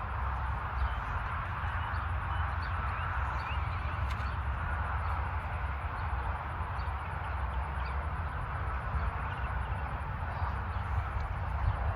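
Steady outdoor background noise: a low rumble and hiss, with faint short chirps scattered through it.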